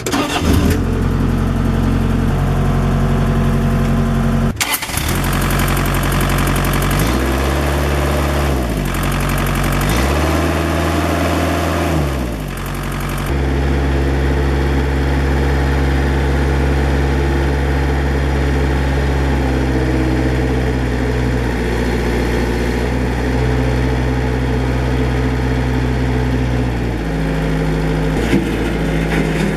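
Diesel engine of a 2005 Ingersoll Rand BL-370D backhoe loader running, with a sharp knock about four seconds in. It is revved up and back down twice, then settles back to a steady run.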